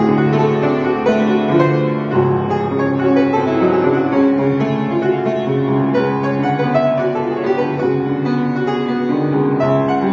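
Upright piano playing a piece, one note after another sounding and ringing on over steady chords.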